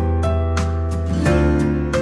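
Background music: plucked acoustic guitar over a sustained bass, with notes changing about every half second to a second.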